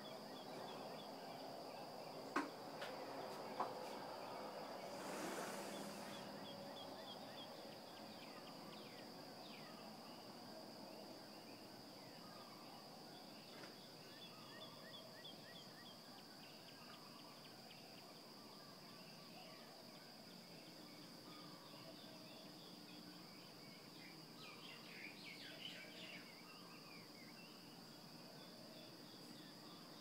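Faint dawn birdsong of scattered short chirps, busier near the end, over a steady high-pitched insect buzz. Two sharp clicks come a couple of seconds in, and a brief rushing hiss about five seconds in.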